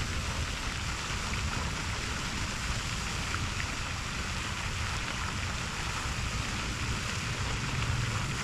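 Steady outdoor background noise: wind rumbling on the microphone over an even hiss, with no distinct events.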